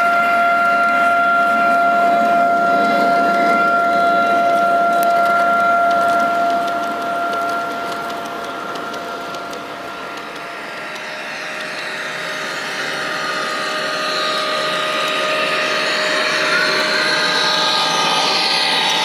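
Large-scale garden railway model electric locomotive running close by, its motor and gearing giving a steady whine of two held tones that fades after about six seconds. A second model locomotive then approaches with a rising whir that grows loud near the end.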